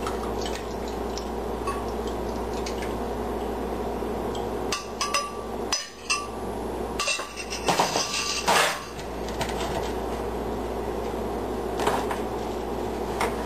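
Kitchen clatter: a mixing container and utensils knocking against a small loaf pan as a soup-and-stock mixture is poured in, in clusters between about five and nine seconds in. Under it runs a steady background hum.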